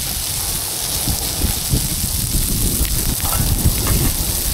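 Steady outdoor hiss with an uneven low rumble of wind buffeting the microphone; a voice is faintly heard about three seconds in.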